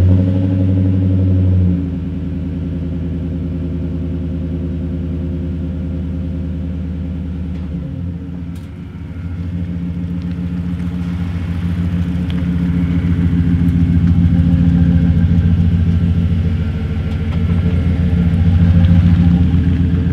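Chevrolet Silverado pickup's engine and exhaust running at a fast idle just after starting, dropping to a lower steady idle about two seconds in. Later it swells louder and eases off again as the truck moves slowly on the driveway.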